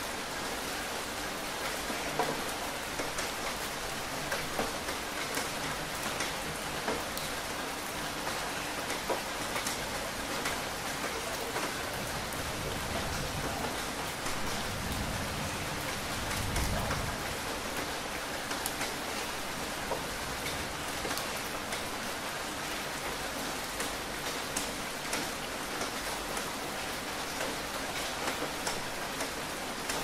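Steady rain: a dense, even hiss with many separate drop hits standing out. A brief low rumble swells up about halfway through.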